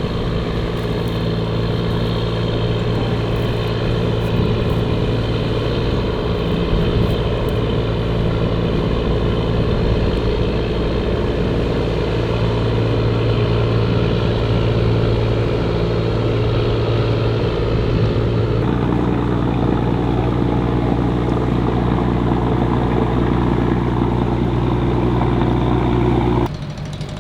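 An engine running steadily at an even speed, its tone shifting slightly about two-thirds of the way through, then stopping abruptly near the end.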